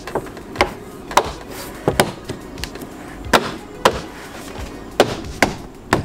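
Plastic door trim panel of a MINI being pressed and knocked home against the door, its retaining clips snapping into place. About eight sharp knocks come irregularly, several in pairs.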